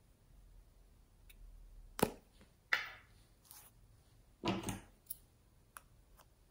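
Quiet handling of a metal-cased lipstick: a sharp click about two seconds in as the cap comes off, another click soon after, then a short cluster of knocks and a few small ticks as the tube and cap are handled and the tip is cut.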